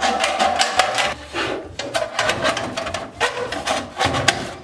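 Tin snips cutting thin galvanized sheet-metal duct: quick runs of sharp snips with the sheet crinkling and ringing, in three bunches.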